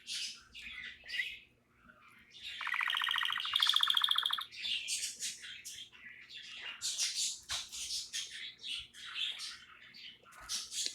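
Pet canary singing: quick chirps and whistles, with a loud, rapid buzzing trill from about two and a half to four seconds in, then more fast chirping phrases.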